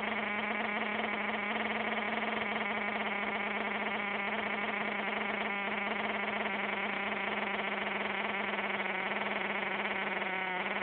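Small RC truck engine idling steadily at rest, a constant pitched hum with a fast flutter.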